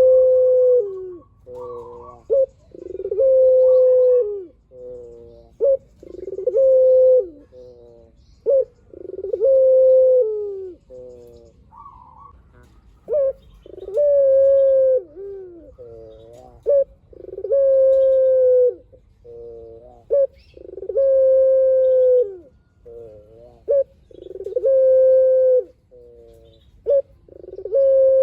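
Puter (ringneck) dove cooing repeatedly. Each phrase is a few short stuttering notes leading into one long drawn-out coo, repeated about every three seconds.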